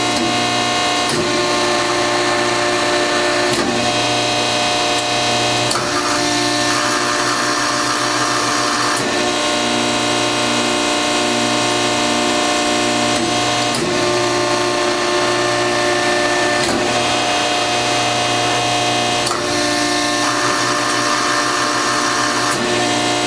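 Standard Industrial AB325-12 hydraulic CNC press brake running: a steady machine hum and whine whose tones shift every few seconds in a repeating cycle. Twice a hiss rises for a couple of seconds.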